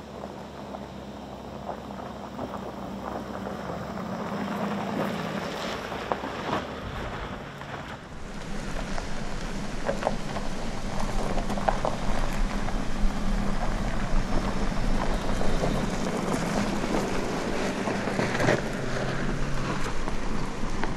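BMW X3 SUV driving on a dirt and gravel track: a low engine hum under the crunch of tyres on loose gravel and stones, with scattered small pops of stones. It gets louder after about eight seconds.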